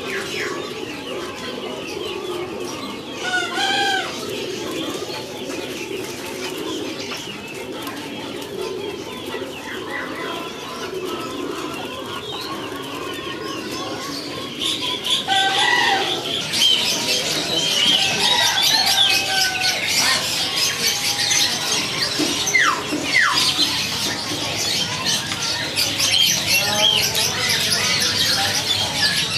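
A flock of birds: low cooing through the first half, then from about halfway in a louder stretch of many short, high chirping calls.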